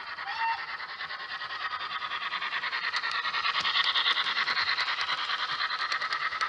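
Model A1 class steam locomotive Tornado's DCC sound decoder playing fast, even steam chuffs through its small speaker, with light clicks as the train runs past, loudest about four seconds in. A short whistle note sounds just after the start.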